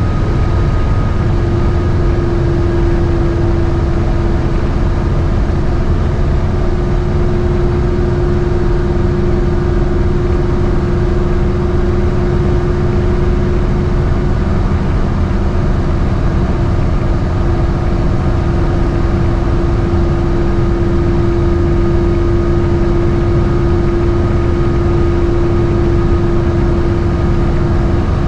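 A GMC motorhome's V8 engine and road noise heard from inside the cab while cruising on the highway under the load of a towed boat trailer: a loud, steady drone with a constant hum-like tone over it.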